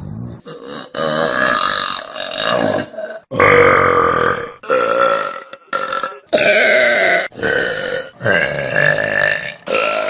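A string of loud, drawn-out human burps, about seven or eight one after another, each lasting from half a second to over a second, with short breaks between them.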